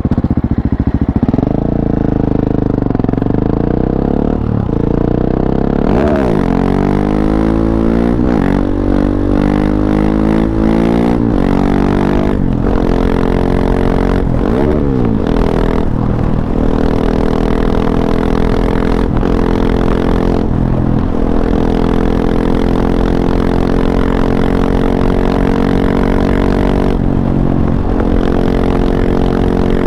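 KTM 690 SMC-R supermoto's single-cylinder engine through an Arrow Race-tech exhaust with the dB killer fitted, running loud. The revs rise and fall several times in the first half, then hold fairly steady.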